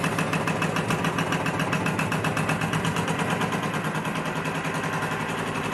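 Home-built rhombic-drive Stirling engine running on its first run-in, at low pressure on a small burner flame. It makes a fast, even clatter of mechanical knocks over a steady hum. Its new roller bearings sound quite rough, and the engine is not yet balanced.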